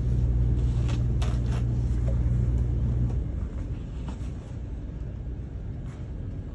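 A steady low motor or engine hum that cuts off about three seconds in, with a few light clicks and knocks.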